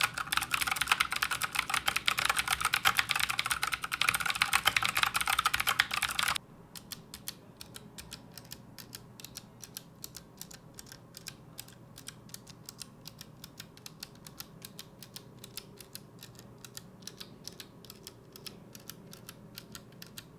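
Fast typing on mechanical keyboards with clicky blue switches (Outemu Blue and Gateron Blue), a rapid stream of sharp key clicks. About six seconds in, the typing cuts abruptly to a much quieter stretch of the same fast clicking.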